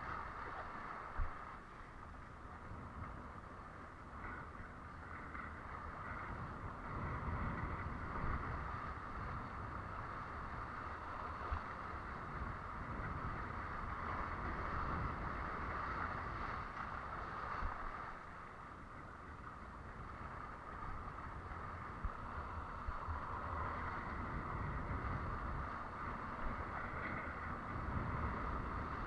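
Water rushing and hissing past a windsurf board under way, with wind buffeting the microphone in low rumbling gusts and a few sharp knocks.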